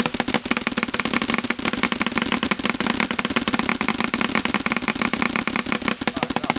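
Planet Eclipse electronic paintball marker fire: a continuous, very rapid string of sharp pops from ramping fire at about 16 balls per second, with a steady hum underneath.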